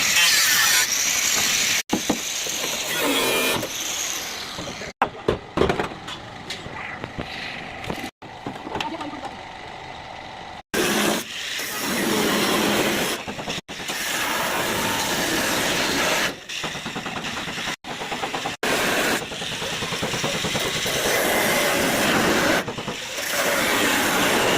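Loud hissing, noisy workshop sounds from car body repair work, cut off suddenly several times and starting up again with a different texture.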